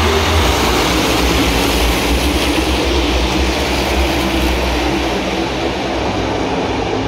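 A field of NASCAR Cup Series stock cars racing past, the many V8 engines blending into one loud, steady drone with a deep rumble underneath.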